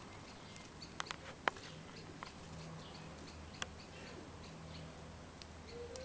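A few sharp clicks, the loudest about a second and a half in, over a steady low hum, with faint short high chirps repeating throughout.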